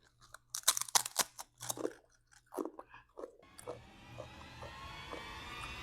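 Potato chips, black truffle flavour, crunching loudly as they are bitten and chewed, in a quick run of crisp cracks over about three seconds. After that a steady background sound swells up.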